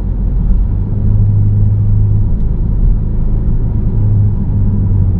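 Car driving, heard from inside the cabin: a steady low rumble of engine and road noise with a low hum that holds for a second or two at a time.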